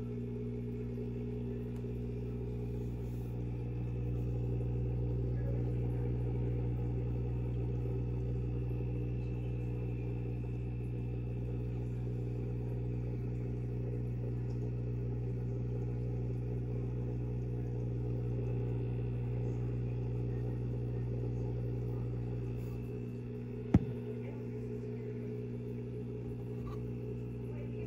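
A steady low electrical hum made of several even tones, with one sharp click near the end.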